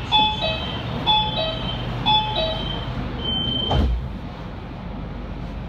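Metro train door-closing warning: a two-note falling chime repeating about once a second, then a longer steady beep, and the sliding doors shutting with a thud about four seconds in. Afterwards there is only the steady hum of the train.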